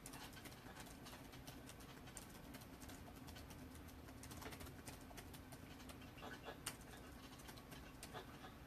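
Faint typing on a computer keyboard: irregular key clicks, with a faint steady hum underneath.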